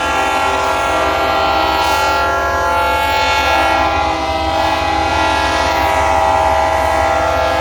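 Diesel locomotive air horns blowing together in one long, loud, unbroken chord. The blend of pitches shifts slightly about halfway through.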